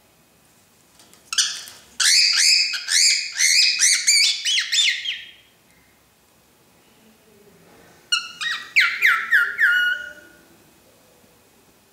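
Cockatiel calling in two quick runs of repeated notes, each note sliding down in pitch; the first run lasts about four seconds, the second starts about eight seconds in and lasts about two.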